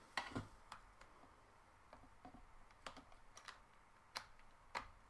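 Faint, scattered taps and clicks on a laptop keyboard, uneven in spacing, with a few sharper ones in the second half.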